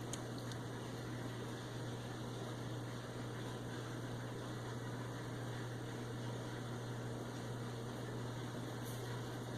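Steady low hum over an even hiss, with a couple of faint ticks near the start and one near the end.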